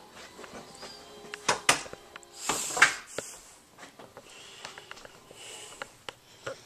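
Handling noise from a handheld camera being carried through the house: a few sharp knocks and clicks, and a loud rustling rush about two and a half seconds in, then faint scattered ticks.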